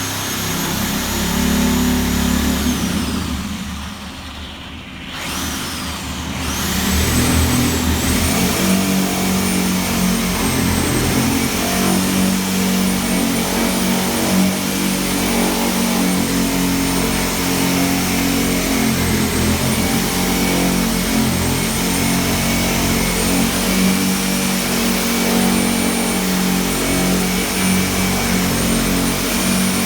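A motor running with a high whine and a low hum. About four seconds in, the whine drops and the sound dips. Around six seconds in it winds back up and then runs steadily.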